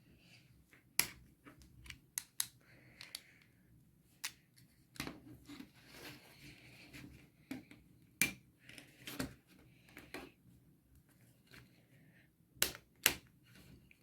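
Irregular small clicks and snaps of a Samsung Galaxy GT-S5360 smartphone's plastic parts as it is pried open and taken apart by hand.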